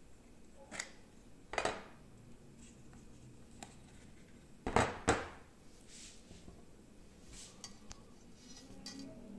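A chrome Zippo lighter being handled and turned over in the hands: scattered light metal clicks and taps, with a louder clack about one and a half seconds in and two more close together about five seconds in.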